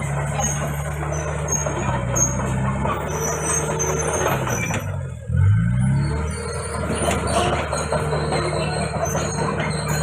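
Komatsu D31PX crawler bulldozer working: its diesel engine runs steadily under the squeal and clatter of the steel tracks. About five seconds in, the engine note dips and then rises again with a brief surge in loudness.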